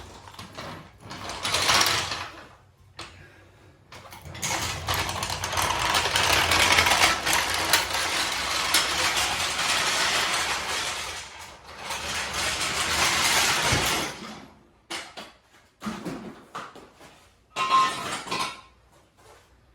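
Car jack being worked to lower the car: a long stretch of mechanical grinding and scraping with many small clicks, then a few knocks as the jack is set down.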